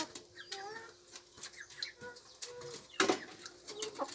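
Domestic chickens clucking softly, with a brief loud flurry of wing-flapping about three seconds in.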